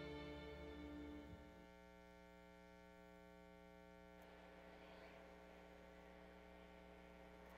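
Quiet, steady electrical mains hum made of several fixed tones. The tail of a piece of music dies away in the first second or two, and a faint hiss of room noise comes in about four seconds in.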